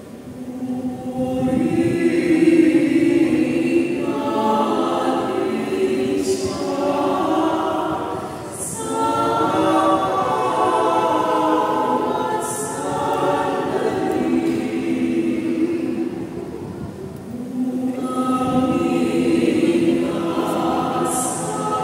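Mixed choir of men and women singing a Tagalog Marian hymn into handheld microphones, in long sustained phrases.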